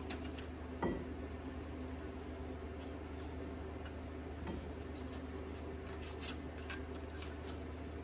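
Light metallic clicks and scrapes of a wire anti-rattle clip being worked into place over the pads in a Toyota Tacoma front brake caliper, the loudest just under a second in, with a few more near the end. A steady low hum runs underneath.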